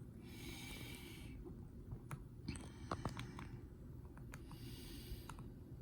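Ceiling fan running with a faint, steady low hum, overlaid by two soft hissy rustles and a few light clicks around the middle.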